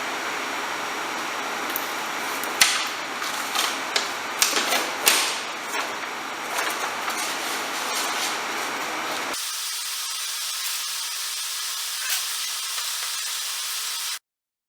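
Handling of a HushMat sound-deadening sheet: a cluster of sharp clicks and crinkles over a steady hiss. About two-thirds of the way through, the low end of the hiss drops away, and the sound cuts off abruptly just before the end.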